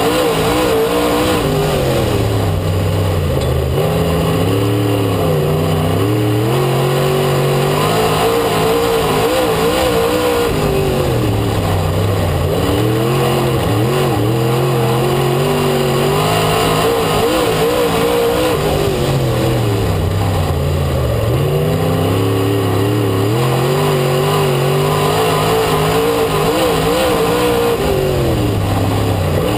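In-car sound of a dirt-track race car's engine running hard at racing speed. Its pitch drops and climbs back up again about every nine seconds.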